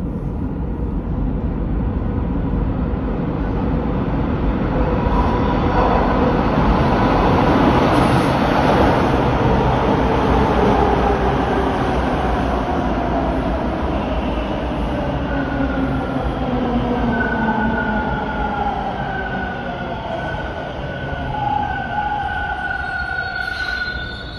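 Bombardier T1 subway train arriving through the tunnel and pulling into the station. A heavy rumble of wheels on rail builds to its loudest about eight seconds in, then a whine falls steadily in pitch as the train slows. In the second half, short high squeals come and go as it brakes.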